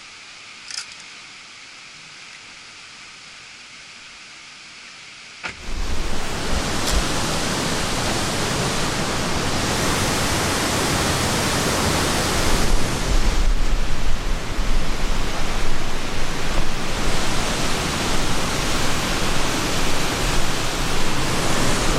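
A faint steady hiss, then about five and a half seconds in a sudden jump to the loud, steady rush of a nearby waterfall, with a deep low rumble under it.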